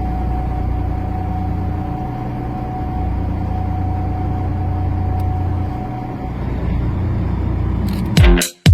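Steady low engine drone with a faint steady whine, then electronic dance music cuts in near the end.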